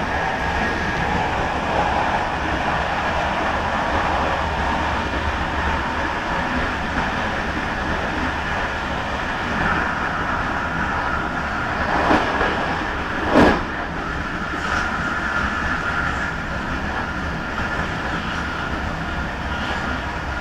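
Train running along the track, heard from inside the driver's cab: steady rolling noise with a steady whine. Two sharp knocks come about a second and a half apart, around two-thirds of the way through.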